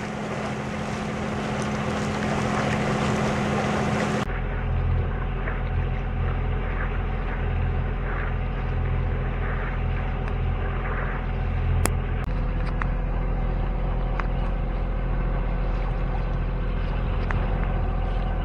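Wind and water rushing past a small sailing yacht. About four seconds in, this changes abruptly to the steady low drone of the yacht's engine motoring along, with a few faint clicks.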